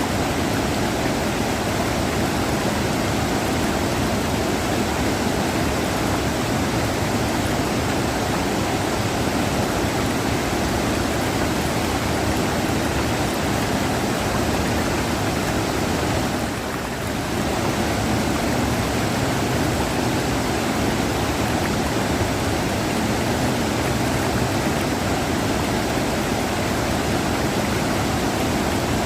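River water rushing, a steady, even noise that dips slightly for a moment about seventeen seconds in.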